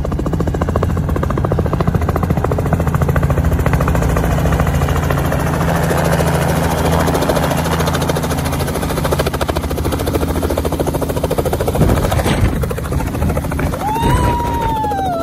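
Small two-bladed helicopter coming in low and hovering over a helipad, its rotor chopping in a fast, steady rhythm over the engine's hum. Near the end a high tone arches up and falls away.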